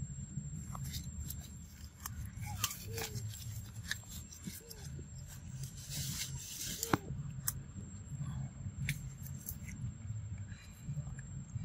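Leaves and undergrowth rustling and crackling as macaques move through the plants and pull at leaves, with scattered sharp clicks and snaps. There is a louder, denser rustle about six to seven seconds in.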